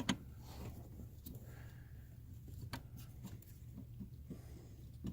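Faint, scattered clicks and small scrapes of a brake light switch being handled and turned in its threaded mount, over a low steady hum.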